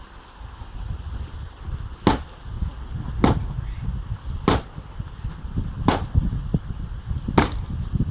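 Five sharp hammer blows, likely a sledgehammer, striking a concrete block wall at a steady pace about every second and a half, breaking the blocks loose.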